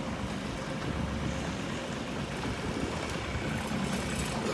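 Long-tail boat engine running steadily as the boat passes on the river, with water wash and wind on the microphone.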